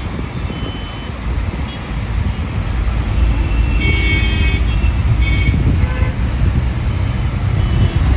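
Heavy low rumble of a bus's engine and road noise heard from inside the moving bus, growing louder a couple of seconds in. Vehicle horns in the surrounding traffic honk several times, the longest blast about four seconds in.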